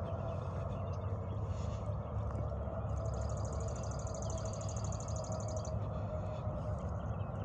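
A small songbird singing one fast, high-pitched trill of about three seconds, starting about three seconds in, over a steady low outdoor rumble.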